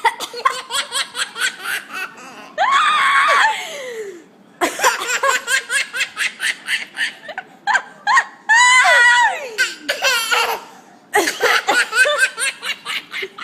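A baby laughing hysterically in rapid breathy bursts, about five a second, breaking three times into loud high-pitched squeals that slide down in pitch.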